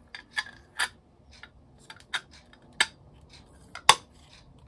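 Small parts of a diamond-painting hairbrush kit clicking and tapping together as they are turned over and fitted by hand: about half a dozen sharp clicks, the loudest near the end.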